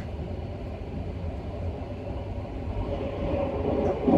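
285 series sleeper train running at speed: a steady low rumble of running noise that grows a little louder near the end.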